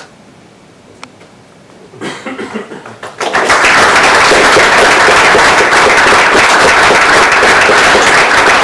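Audience applause: a few scattered claps about two seconds in, swelling about a second later into loud, steady clapping from many hands.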